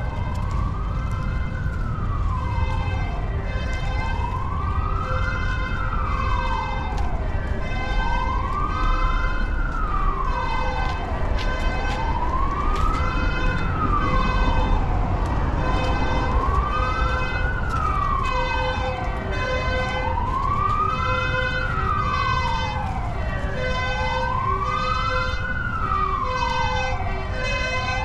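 Emergency vehicle siren wailing, its pitch rising and falling slowly about every four seconds, over a steady low rumble.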